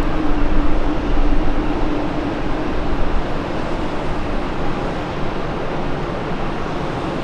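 Airbus A340 airliner's four jet engines at approach power as it descends to land: a steady rushing jet noise with a low hum underneath.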